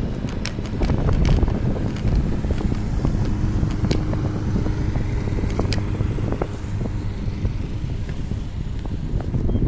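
Wind rumbling on the microphone of a handlebar-mounted camera as a bicycle rolls along asphalt, with scattered sharp clicks and rattles from the bike.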